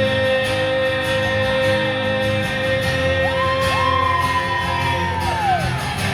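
Live country band playing in a concert hall between sung lines: a long held note, then sliding pitches that rise, hold and fall in the second half.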